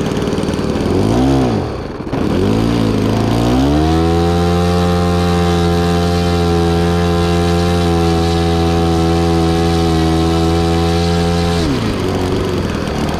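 Nitro glow engine of an RC P-51D Mustang model plane, blipped up and down twice, then opened up to a steady high pitch held for about eight seconds before it is throttled back sharply near the end.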